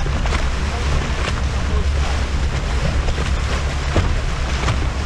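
Boat motor running with a steady low hum as the boat moves through choppy water, under wind buffeting the microphone and water rushing and slapping against the hull.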